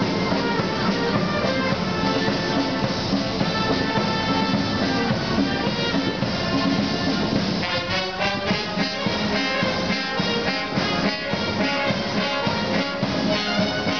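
Military marching band of brass, woodwind and drums playing a march, heard from a short way up the street as the band approaches. About halfway through, the music moves into a passage of quick, short notes.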